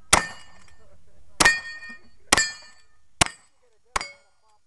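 Lever-action rifle firing five shots, roughly one a second, each followed by the brief ring of a struck steel target.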